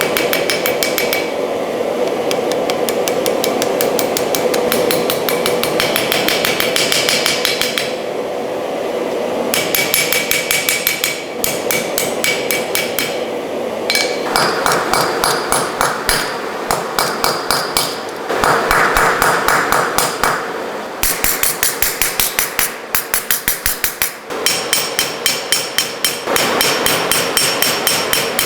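Hammer blows on hot railroad-rail steel at the anvil during forging, a quick even rhythm of several ringing strikes a second. The sound comes in short stretches that change abruptly in tone every few seconds.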